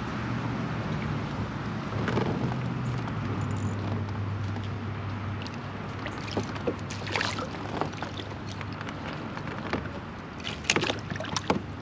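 A steady low hum from a small fishing boat on the water, with scattered light clicks and taps from handling the rod, reel and tackle, most of them in the second half.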